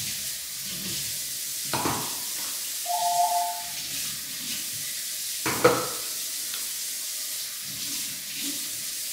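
Kitchen tap running in a steady stream as can tops are rinsed under it. There are three short louder knocks, and a brief two-tone beep about three seconds in.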